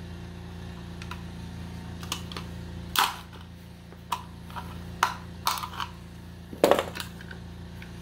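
Sharp plastic clicks and snaps as the knockout tabs in the back of a blue PVC old-work electrical box are pushed in by hand: a handful of separate clicks, the loudest near the end, over a low steady hum.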